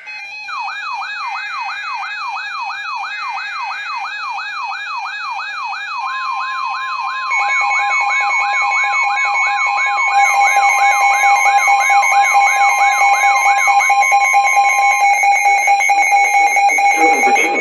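Several electronic siren and alarm tones layered together. A fast sweeping siren repeats about two and a half times a second, with a warbling tone above it, and a steady tone near 1 kHz joins about six seconds in. More tones come in around seven and ten seconds in, and the whole gets louder.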